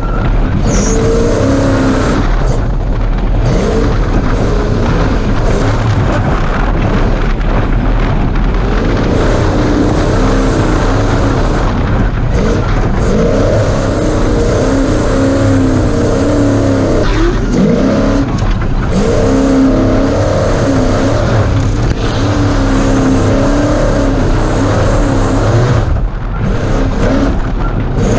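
Ford Ranger desert race truck's engine running hard, its note rising and falling as the throttle comes on and off, over a constant heavy rush of noise.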